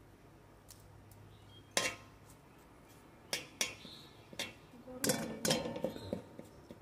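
Metal spatula clinking and scraping against a metal kadai as bay leaves are stirred in ghee. The knocks are scattered and irregular, a few early on the way and a busier run of them past the middle.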